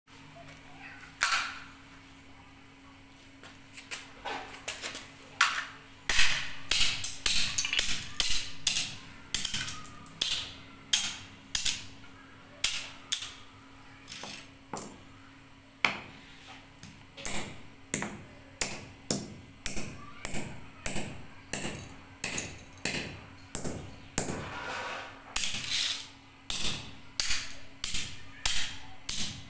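A hammer smashing a computer mouse: a long series of sharp cracking blows on plastic. They come scattered at first, then strike steadily about every half second to a second, over a faint steady hum.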